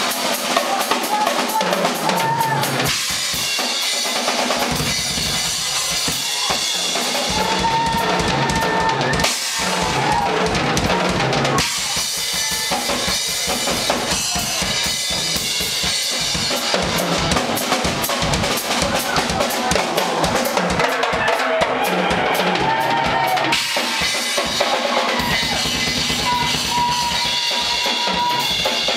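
Live rock band playing with a loud drum kit to the fore: a steady bass drum and snare beat under electric guitars and bass.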